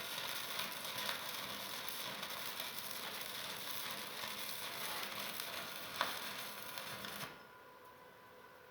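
Welding arc crackling and sizzling steadily, then cutting off suddenly near the end as the arc is broken.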